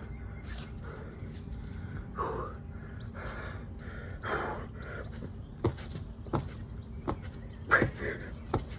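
Hands slapping down on a paved patio during plyometric push-ups: about five sharp landings, roughly one every 0.7 seconds, starting a little past halfway. Before them come a few heavy breaths as the exerciser sets up.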